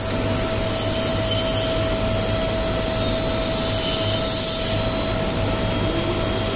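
Twin-spindle CNC PCB drilling and routing machine running: a steady high spindle whine over the hiss of its dust extraction, with a second whine that rises in pitch near the end.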